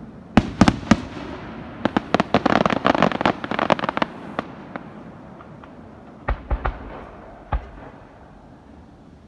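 Aerial fireworks shells bursting: a few loud bangs in the first second, then a rapid run of many sharp pops for about two seconds, then a few separate bangs later on, dying away near the end.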